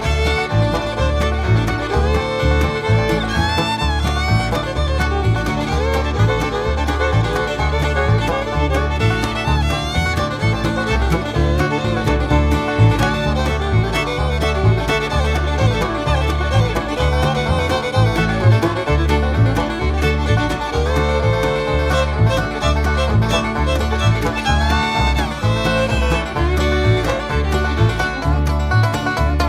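Bluegrass music with fiddle, banjo and guitar over a steady bass beat.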